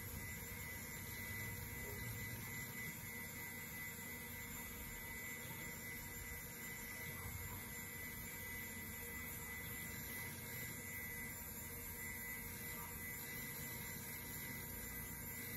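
IBM PC Server 315 running steadily while it boots: an even whir of cooling fans and spinning drives with a thin high tone and a low hum over it.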